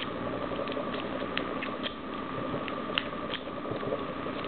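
Light, irregular metallic clicks of a snake pick raking the pins inside a cheap steel padlock, over a steady hiss.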